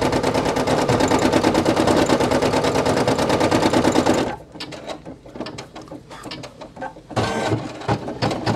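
Brother PE800 embroidery machine stitching at speed, a fast even clatter of the needle, which stops abruptly about four seconds in. After that, only faint scattered clicks and knocks, with one short louder burst near the end.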